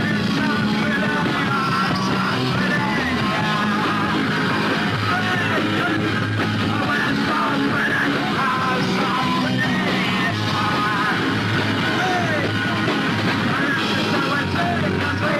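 Punk rock song with a yelled, sung vocal over a full band, playing steadily throughout.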